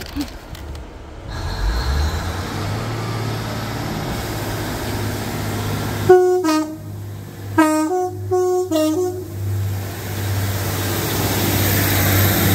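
Diesel locomotive's two-tone horn: a short high-low blast about six seconds in, then after a pause a longer run of alternating high and low notes. The locomotive's engine drones steadily underneath.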